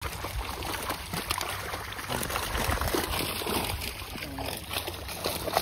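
Water splashing and trickling, with small irregular clicks and knocks.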